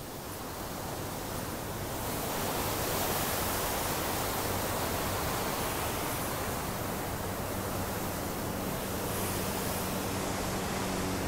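Steady rush of water pouring over a dam's weir. About three-quarters of the way through, a low engine hum rises in under it.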